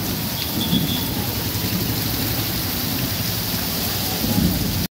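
Heavy rain pouring onto a wet street, a steady hiss of rain on the road surface. The sound cuts out for a moment near the end.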